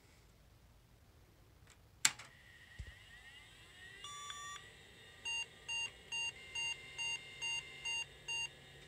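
A 486 PC being switched on: a sharp click from the power switch about two seconds in, a fan whirring up, then one longer beep followed by a run of eight short, evenly spaced beeps.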